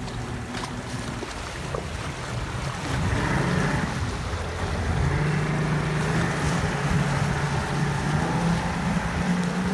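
Twin Yamaha Z200N HPDI two-stroke outboard motors running on a test run for an engine fault, the engine note getting louder about three seconds in and rising again near the end. Water rushes past the hull and wind buffets the microphone.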